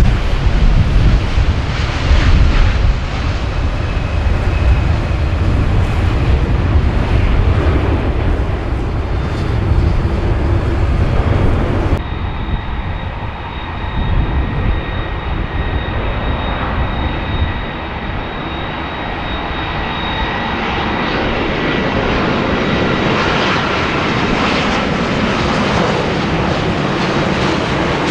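Jet airliner engines at close range. For the first part, a loud, deep rumble of engines at high power. After a sudden change about twelve seconds in, a second jet with a steady high whine over its roar grows slowly louder.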